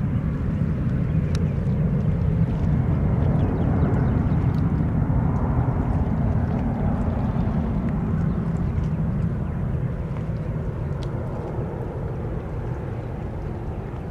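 Airbus A319 airliner's jet engines at takeoff power: a deep, steady rumble that swells for the first few seconds, then slowly fades as the aircraft gets farther away.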